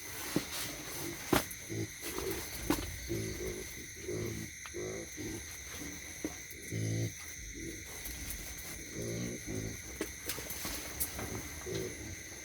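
A group of young piglets grunting in short, repeated low calls, with a few sharp clicks among them.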